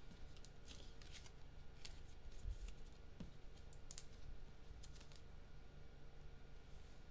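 Faint scattered clicks and rustles of trading cards and packaging being handled, thinning out after about five seconds.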